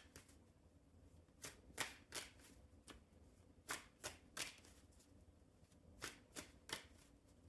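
Tarot cards being shuffled by hand: about a dozen soft, brief card rustles in small clusters, quiet overall.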